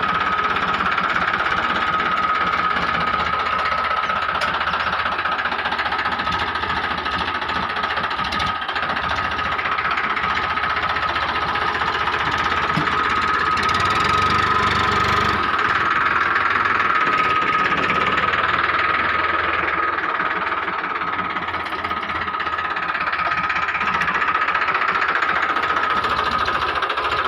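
Mini loader tractor's engine running steadily, with a steady high whine over the engine noise.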